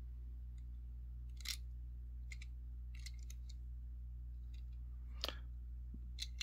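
Faint, scattered clicks and light taps from fingers handling a small die-cast toy car, over a steady low hum.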